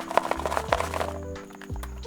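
Keystrokes on an Akko YU01 resin-cased mechanical keyboard: a quick flurry of clacks in the first second or so, thinning out after, over background music.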